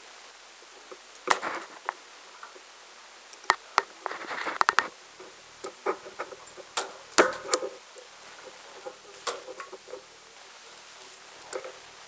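Punch-down tool snapping as the cable's wires are pressed into the slots of a keystone jack: a dozen or so sharp clicks at uneven intervals, some in quick clusters, with brief rustling of the wires and jack being handled.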